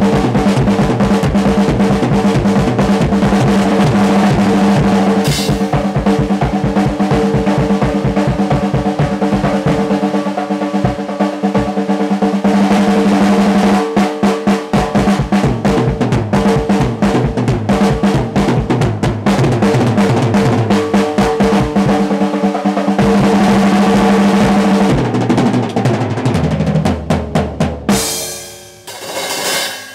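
Drum kit played solo: fast, dense rolls and fills on snare and toms with bass drum underneath, the drums ringing. Near the end the playing winds down to a few last hits.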